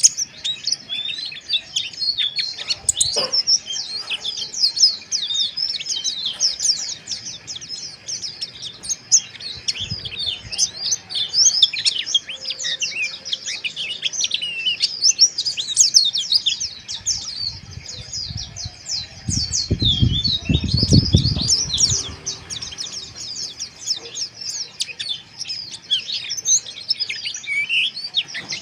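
Pleci (white-eye) song: a fast, continuous, rough twittering of short high chirps, the 'ngeriwik kasar' song. A low rumble sounds briefly about two-thirds of the way through.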